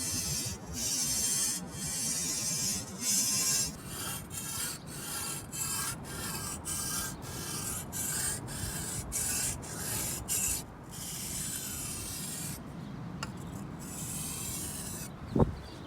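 Carbon-steel blade of a katana-style machete stroked back and forth on a soft Arkansas whetstone: repeated scraping strokes that quicken to about two a second midway, then grow quieter. A single low knock near the end.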